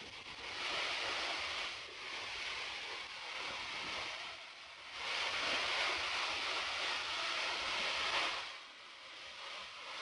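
An 80-metre waterfall pouring down onto rock, a steady rushing hiss that swells louder twice: around the first second, and again from about five to eight and a half seconds in.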